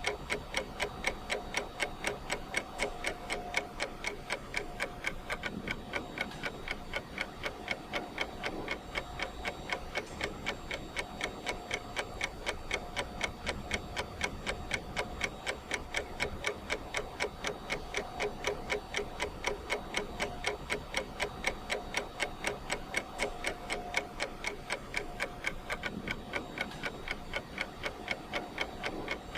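Ticking clock sound of a countdown timer, an even tick about twice a second.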